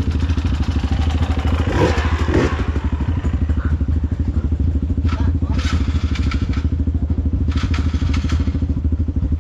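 Trail motorcycle engine running steadily with a deep, rapidly pulsing rumble, and bursts of rushing noise about five and eight seconds in.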